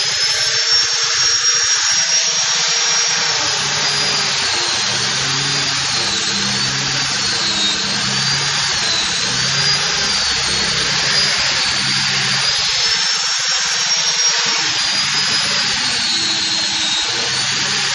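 Electric angle grinder fitted with a sanding disc, running steadily and abrading a wooden door panel: a loud, continuous gritty hiss over a high motor whine that wavers up and down in pitch.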